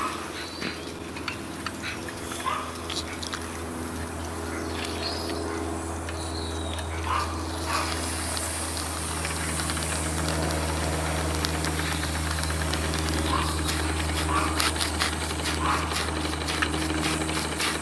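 Small RETROL live-steam model engines running, a beam engine and a Stephenson's link engine, over a steady low hum and hiss. A rapid clicking from the running mechanism sets in about eight seconds in and grows denser, with a few short chirps scattered through.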